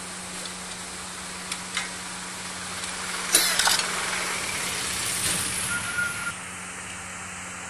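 Clinks and knocks of metal engine parts being handled on a stripped-down diesel engine block, with a louder cluster of clinks about three seconds in. A steady low hum runs underneath, and a rushing noise rises in the middle and cuts off suddenly about six seconds in.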